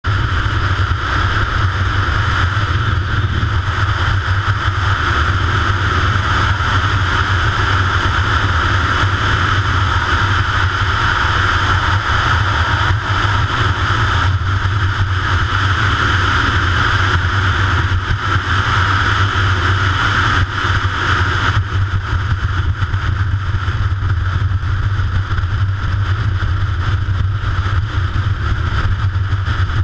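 Yamaha XT 660 X's single-cylinder four-stroke engine running steadily while riding, mixed with a constant rush of wind on the microphone. The rushing eases a little about two-thirds of the way through.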